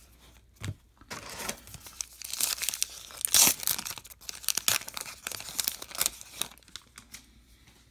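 A baseball trading card pack's crimped wrapper being torn open and pulled off the cards, a run of crinkling and tearing that is loudest about three and a half seconds in.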